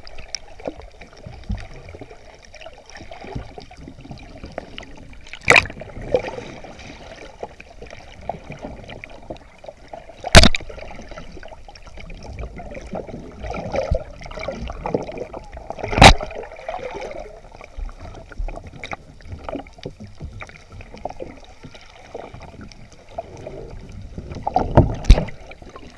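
Muffled underwater water noise, a low churning wash recorded with the camera submerged. Three sharp knocks stand out, about five, ten and sixteen seconds in, and the noise grows busier near the end.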